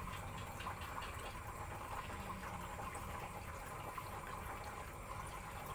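Faint water sounds from a ladle moving in a shallow plastic tub of water, with small scattered ticks over a steady low hum.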